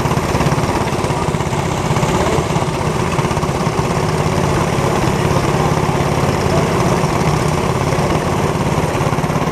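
A racing go-kart's small single-cylinder engine idling steadily while the kart sits stopped, with a fast, even putter.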